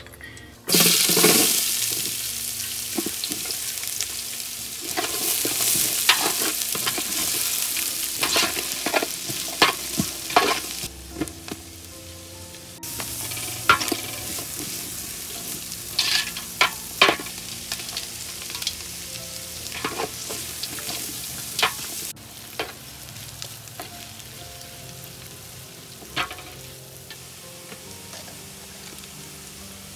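Sliced onions and whole spices sizzling in hot butter oil in a large aluminium pot, stirred with a wooden spoon that scrapes and knocks against the pot. The sizzle starts suddenly about a second in and grows softer in the last third.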